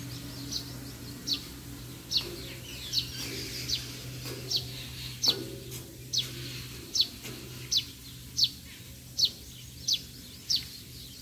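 A bird calling over and over: a short, high, falling note repeated evenly about every three-quarters of a second.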